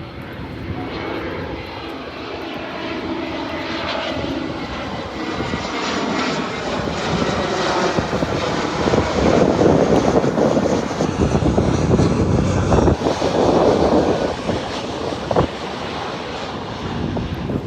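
Airliner on landing approach passing close overhead, its engines roaring louder as it nears, peaking a little past the middle and then easing off as it passes.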